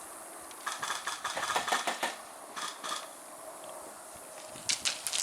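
Airsoft guns firing: a rapid burst of sharp snapping shots lasting over a second, two single shots, then another quick burst near the end.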